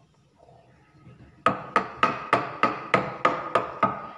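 A filled stainless steel box knocked down on a countertop nine times in a steady rhythm, about three knocks a second, each with a short metallic ring.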